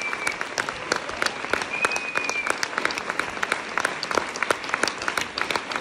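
Audience applauding, a dense patter of handclaps, with a high held whistle heard twice, at the start and about two seconds in.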